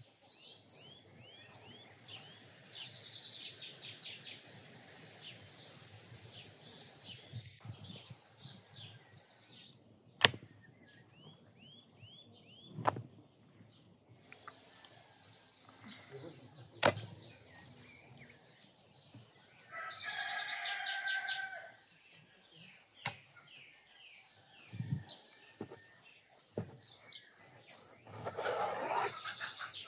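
A heavy cleaver cutting through raw lamb fat and knocking sharply on a wooden cutting board, a handful of single strikes several seconds apart. Small birds chirp and sing throughout.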